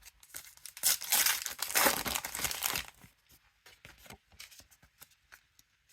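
A Match Attax trading-card pack's foil wrapper being torn open and crinkled, loudest for about two seconds, then softer rustling and light clicks as the cards are handled.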